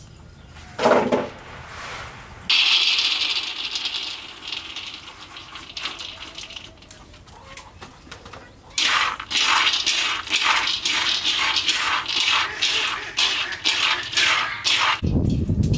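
Raw peanuts poured into a dry iron wok, a loud hissing rattle about two and a half seconds in that fades over a few seconds. From about nine seconds, long chopsticks stir the peanuts as they dry-roast over a wood fire, a rattling scrape about twice a second. A low rumble comes in near the end.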